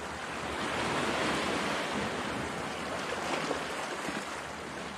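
Small sea waves washing on the shore: a steady rush of surf that swells a little about a second in.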